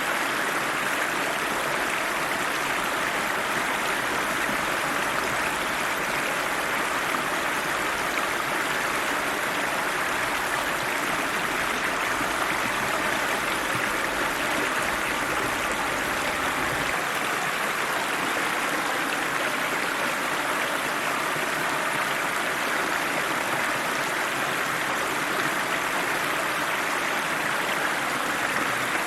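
Icy cold river flowing: a steady, even rush of running water.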